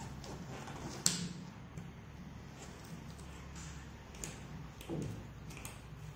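Cardboard jigsaw puzzle pieces being handled, giving a few light taps and clicks, the sharpest about a second in, over a low steady hum.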